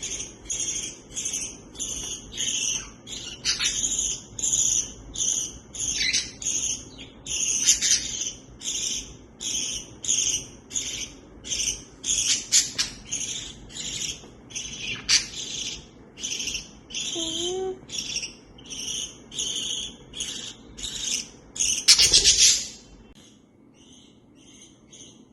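Budgie repeating a short, even chirp about two times a second, with a few scattered clicks. A louder rustling burst comes near the end, and then the chirping stops.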